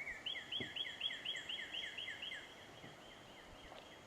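A bird calling: a quick run of short, down-slurred, squealing notes, about six or seven a second, that fades away after about two seconds.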